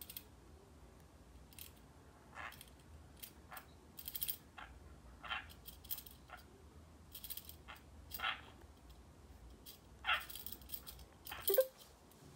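Parakeet giving short, scattered chirps, about half a dozen, with sharp metallic clicks and jingles in between.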